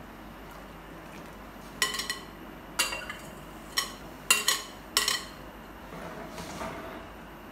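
Slotted metal spoon clinking against a metal cooking pot about six times, sharp ringing knocks, as soaked basmati rice is tipped and scraped from a bowl into boiling water and stirred. A steady low hiss of the pot at a rolling boil runs underneath.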